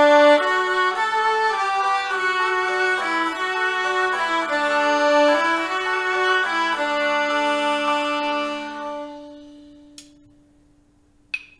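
Viola playing a slow, smooth slurred exercise in dotted-quarter and eighth-note rhythm, moving in steps, over a recorded accompaniment that holds lower notes. The last note is held and fades out about eight seconds in.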